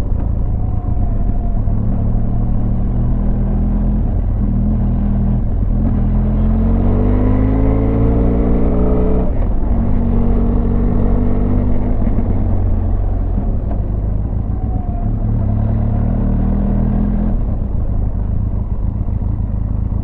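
Benelli 502X motorcycle's parallel-twin engine running under way, with wind noise on the microphone. Its pitch climbs as it accelerates, drops at a gear change, then holds a steady pull.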